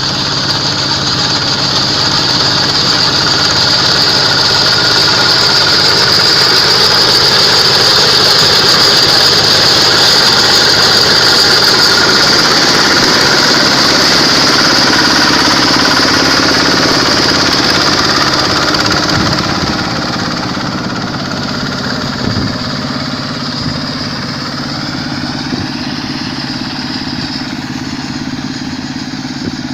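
Quick H-140R rice combine harvester running on its Kubota diesel engine: a steady engine drone under a strong high hiss and rattle from the machine. It eases off a little about two-thirds of the way through.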